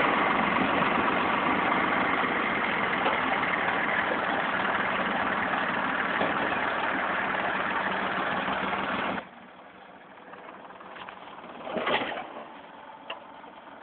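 IHC 633 tractor's diesel engine running steadily, cutting off abruptly about nine seconds in; a few faint knocks follow.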